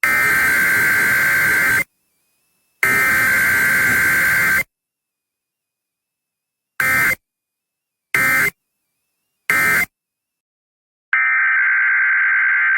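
Emergency Alert System SAME digital data bursts. Two long header bursts about a second apart are followed by three short end-of-message bursts that signal the alert is over, and a new header burst begins near the end.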